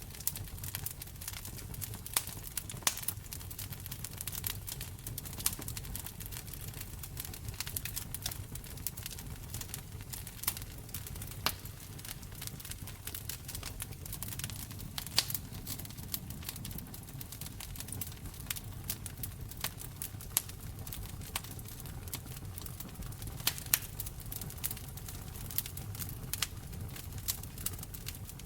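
Wood fire crackling and popping, with irregular sharp pops and snaps scattered over a steady low rumble of the flames.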